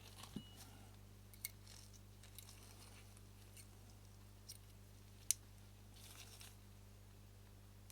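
Faint, sparse clicks and taps of small metal lens parts being handled and fitted together, with a sharper single click a little past five seconds in. A steady low hum runs underneath.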